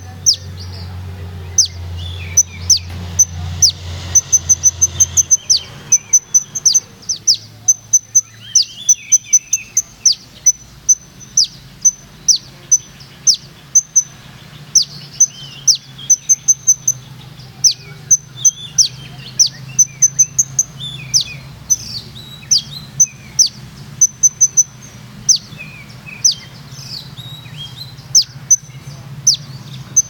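Caged kolibri ninja sunbird singing: a long, fast series of sharp, high, downward-slurred notes broken by quick rattling trills, over a low steady hum.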